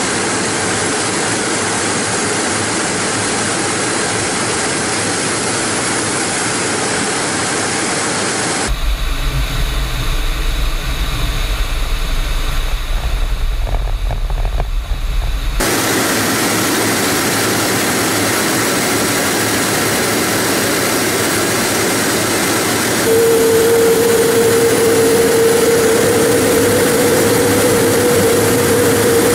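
Steady jet and airflow noise inside a MiG-31 cockpit in flight. It changes character abruptly a few times, with a deep rumble for a stretch in the middle. About two-thirds of the way in, a steady mid-pitched tone joins and the noise grows louder.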